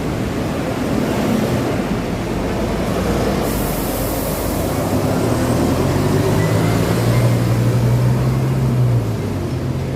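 City bus and street traffic at a bus stop. A short high hiss comes about three and a half seconds in. A bus engine hum then grows louder, rises slightly in pitch and stops about nine seconds in.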